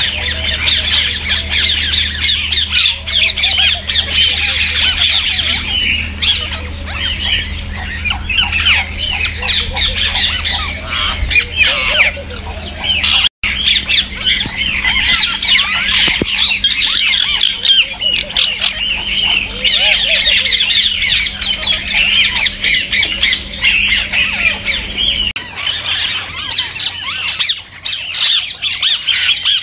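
A flock of rose-ringed (Indian ringneck) parakeets calling together, a dense chorus of shrill, overlapping squawks with a brief break about halfway. A low steady hum sits underneath and stops near the end.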